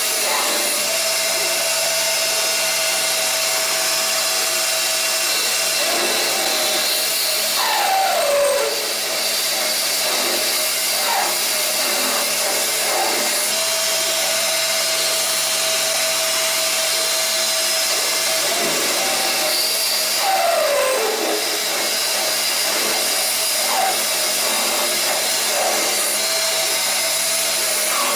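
CNC lathe running and turning a metal bar with an insert cutting tool: a steady machine whir and hiss with a held tone. Twice, about twelve seconds apart, a tone slides down in pitch.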